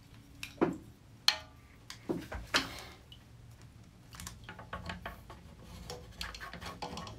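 Kitchen handling of a lobster and utensils: scattered light taps and clicks with some rubbing. Two sharper taps about half a second and just over a second in, the second followed by a brief squeak, then a run of small clicks near the end.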